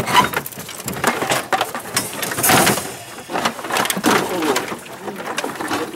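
Water splashing and knocking against an aluminium boat as a big trairão (Hoplias wolf fish) is worked into a landing net, with one loud splash about two and a half seconds in.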